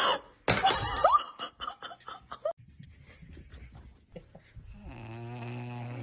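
A puppy snoring in its sleep: a low, buzzing snore that starts about five seconds in and holds steady to the end. The first couple of seconds carry louder, short mixed sounds.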